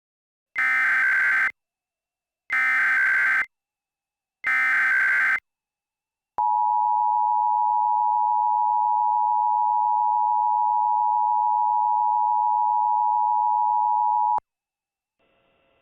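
Emergency Alert System alert opening: three one-second bursts of SAME header data tones about a second apart, then the two-tone EAS attention signal held steady for about eight seconds before cutting off abruptly.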